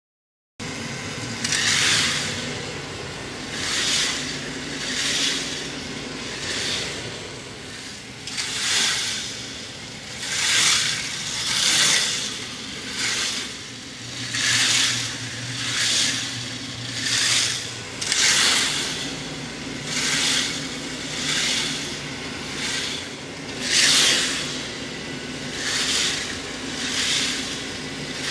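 Plastic K'nex model roller coaster running: a steady motor hum under a plastic rattle that swells and fades about every one and a half seconds.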